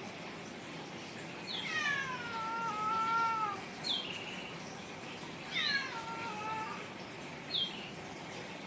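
A cat meowing: two long, drawn-out meows that drop in pitch and then hold, with short high chirps between them.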